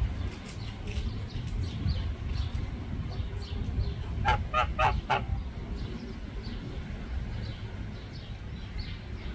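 Small birds chirp over and over in the background above a steady low rumble. About four seconds in, a larger bird gives four short calls in quick succession, louder than anything else.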